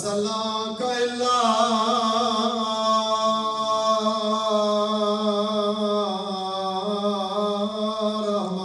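A man's voice singing one long held note of a mourning chant, a drawn-out vowel sustained for several seconds with a slight waver near the start.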